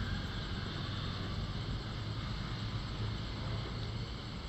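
Steady low rumble with an even hiss over it.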